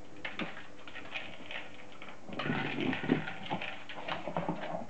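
Dogs' claws clicking and scraping on a wooden floor as two beagles move about and nose a toy ball along it, with irregular taps and knocks that get busier about halfway through.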